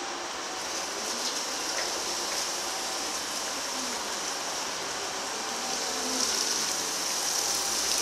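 Hyster E3.00XM electric forklift manoeuvring on wet concrete: a steady hiss of its tyres and electric drive with no engine note, a little louder in the second half as it turns close by.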